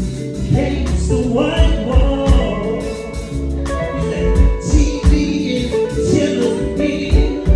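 A band playing a song with a singer, a steady drum beat and an electric guitar, a Gibson ES-339 Pro.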